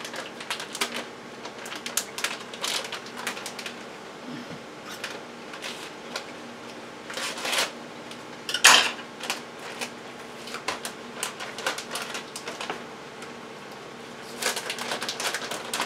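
Plastic bag of shredded cheddar cheese crinkling and rustling as it is opened and handled, with irregular crackles and clicks and one louder clatter about nine seconds in.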